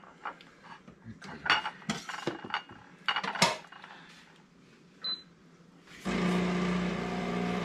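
A metal fork clicking and scraping against a mussel shell and a plate several times while the baked mussel is pried loose. About six seconds in, a steady machine hum with a whirring noise starts and runs to the end, louder than the clicks.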